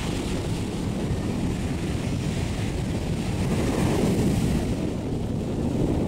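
Wind buffeting the microphone, with waves breaking on the shore behind it as a steady wash.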